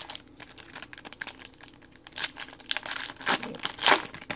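A 2017-18 Panini Prizm basketball card pack's wrapper crinkling and tearing as it is ripped open, a run of crackles with the loudest tears near the end.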